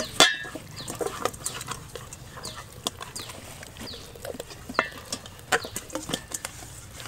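Hands rubbing marinade into a whole raw chicken in a stainless steel bowl: a steady run of wet squelches, slaps and squishes, the loudest just after the start. Short falling chirps of birds repeat in the background.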